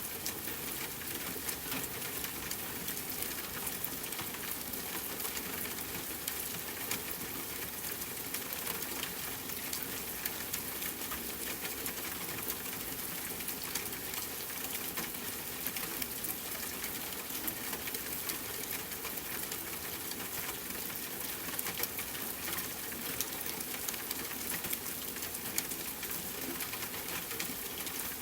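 Rain falling steadily on a tent with a campfire crackling: a constant hiss dotted with many small sharp clicks.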